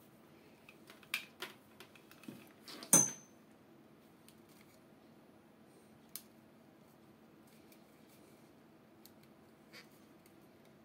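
Handling of soft aquarium airline tubing and a small plastic fitting: a few light clicks, one sharp click about three seconds in, then only faint scattered ticks.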